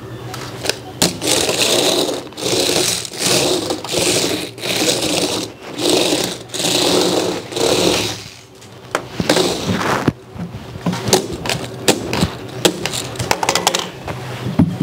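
Small electric drive motors of a toy RC robot dog's wheels whirring in short bursts about once a second, as it is driven back and forth by remote. In the second half come scattered sharp clicks and knocks of hard plastic against the table.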